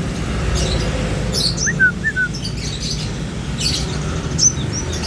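Many small caged songbirds chirping, short high calls overlapping from several birds, over a steady low background rumble.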